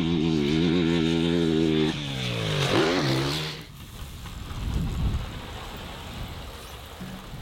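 Dirt bike engine held at high revs as the bike passes at speed, its pitch falling steeply as it goes by and slows about two to three seconds in. It then rolls in at low engine speed and is much quieter.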